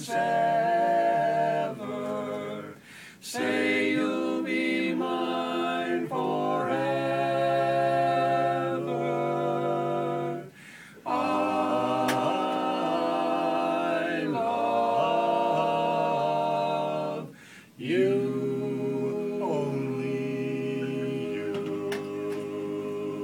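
Male barbershop quartet singing a cappella in close four-part harmony, holding long chords, with three short pauses between phrases.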